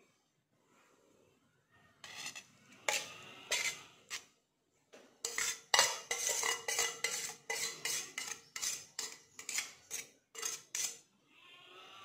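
A steel spoon scraping and clinking against a stainless steel plate and bowl as paste is knocked off into the bowl. A few scrapes come first, then from about five seconds in a quick run of metallic clinks, a few a second, that leave a ringing tone.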